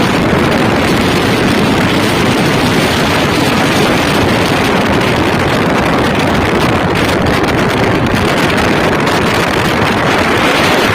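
Steady wind rushing over the microphone of a moving motorcycle, with the engine running underneath, loud and unbroken.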